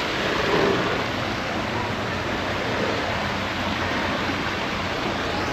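Small stream cascading over rocks: steady rushing, splashing water.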